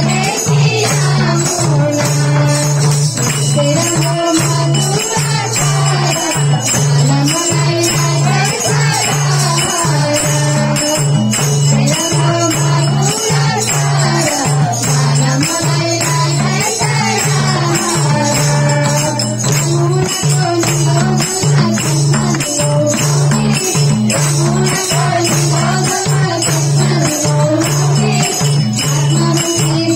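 A Nepali Krishna bhajan performed live: voices singing the melody over a steady, fast rhythm on madal hand drums, with a sustained harmonium-like drone and hand clapping.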